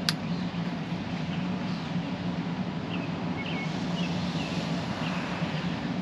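Birds chirping a few short times over a steady low outdoor hum, with one sharp click right at the start.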